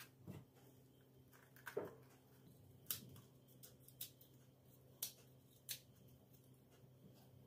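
Near silence with a faint steady low hum and about six light, sharp clicks and taps scattered through, like small objects being handled.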